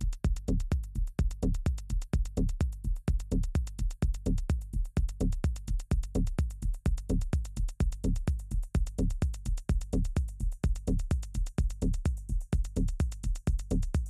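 Electronic dance music with a steady kick-drum beat and fast ticking hi-hats.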